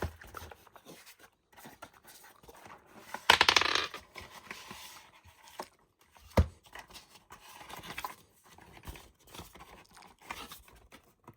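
Rustling and scraping of packaging as a small cardboard box of memorabilia is opened and its contents taken out by hand. There is a louder burst of rustling, like tearing, a little over three seconds in, and a single sharp knock about six seconds in.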